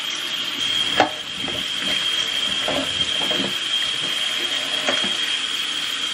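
Kitchen tap running steadily over cauliflower florets being rinsed, with a sharp knock about a second in and a few softer knocks as the pieces are handled in the sink.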